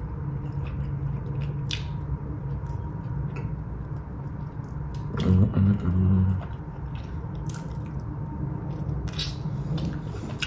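Wet mouth sounds of someone eating chicken wings: scattered lip smacks and chewing clicks. A short closed-mouth "mm" comes about halfway through.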